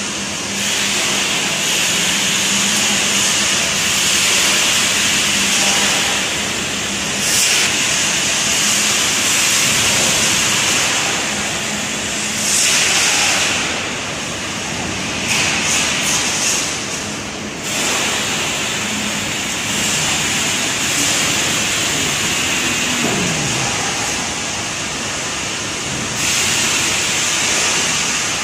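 Loud, steady industrial machinery noise under an electric double-girder overhead crane as it hoists a bundle of steel bars on a lifting beam. A low steady hum runs through the first twelve seconds or so, and a short falling tone comes about three-quarters of the way through.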